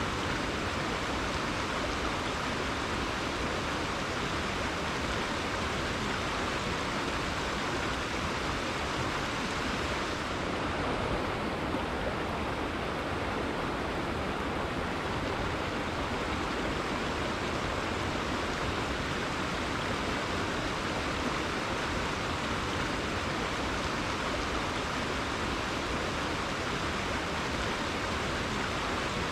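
Rainforest river water flowing steadily, an even hiss of running water.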